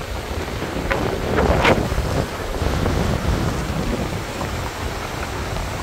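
Wind buffeting the microphone in gusts over the steady rush of a river.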